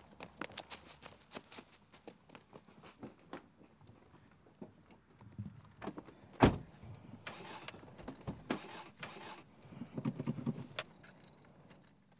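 A run of small clicks and knocks, with one sharp, loud thump about six and a half seconds in, followed by a couple of hissing stretches and a brief low rumble near the end.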